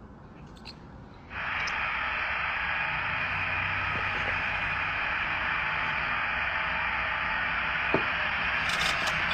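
Television static hiss that switches on abruptly about a second in and then runs steadily, with a single short click near the end.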